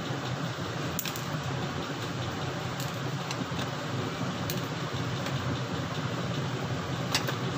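A few light clicks and taps of a screwdriver and small loose screws on a laptop's plastic bottom cover, over a steady low room hum.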